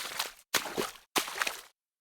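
Footsteps wading through shallow water, with three splashing steps about half a second apart. Each step starts sharply and sloshes away.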